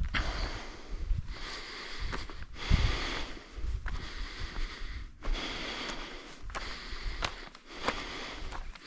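A hiker breathing hard and rhythmically, about one breath every second and a half, with a few sharp clicks of footsteps on the trail.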